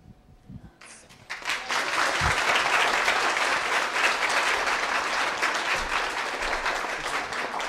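A roomful of people applauding: the clapping starts about a second in, builds quickly and holds steady, easing slightly near the end.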